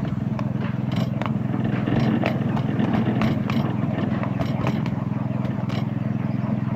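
Petrol engine of a petrol-hydraulic miniature-railway locomotive running at a steady pitch, with irregular clicks and clatter from the train's wheels on the 7¼-inch gauge track.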